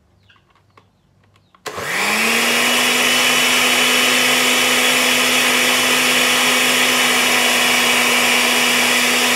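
Countertop blender switched on about a second and a half in: the motor spins up quickly and then runs loud and steady, blending a watery green seasoning mix.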